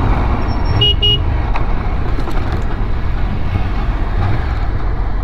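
Ducati Scrambler L-twin motorcycle riding at speed, a steady rush of wind and engine noise; about a second in, a vehicle horn toots twice in quick succession.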